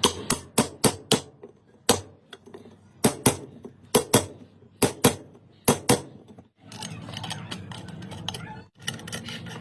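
A series of sharp metal-on-metal taps, about fourteen strikes over six seconds, many in quick pairs, as when a fan's ball bearing is tapped with a hammer. From about seven seconds in, a steadier, quieter sound without strikes.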